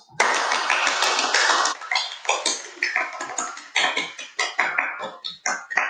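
A small group of people clapping their hands in applause: a dense burst for about a second and a half, then thinner, separate claps.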